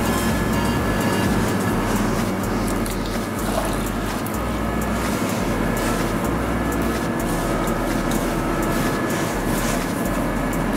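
Steady, loud mechanical drone of bakery machinery with a wavering low hum, and faint scattered clicks and rustles on top.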